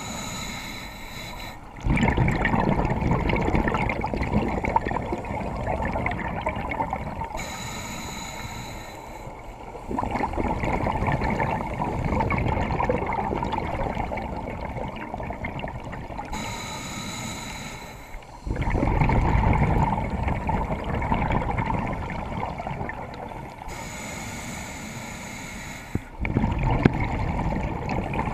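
Scuba diver breathing through a regulator underwater: slow inhalations with a thin hissing whistle, each followed by a longer, louder rush of exhaled bubbles, the cycle repeating about every eight seconds.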